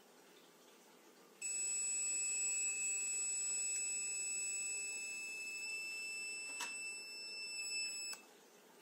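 Open Radiation Detector's buzzer sounding one steady high-pitched tone for about seven seconds, stuck on because version 0.9 has trouble turning the buzzer off. It starts about a second and a half in, a click comes about five seconds later, and the tone cuts off suddenly.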